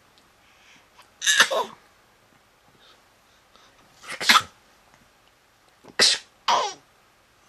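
A six-and-a-half-month-old baby's mock sneezes: three short sneeze-like bursts a couple of seconds apart, the last one in two parts.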